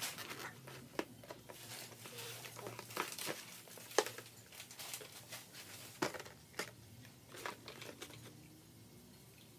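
Hollow plastic Easter eggs clicking and knocking on a tabletop as they are set down and pushed into a row, a scattering of light clacks, the sharpest about four and six seconds in.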